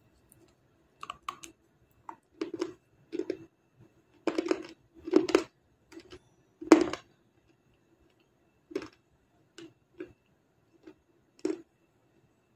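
Crunching bites and chewing of a brittle white chalky block sold as 'Black Star': a quick run of sharp crunches, loudest about halfway through, then slower, quieter crunches as the pieces are chewed down.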